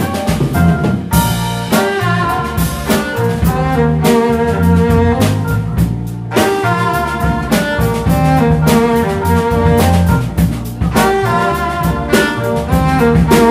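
Live small-group jazz: a five-string violin bowing the melody over keyboards, a drum kit keeping a steady beat, and a seven-string electric bass.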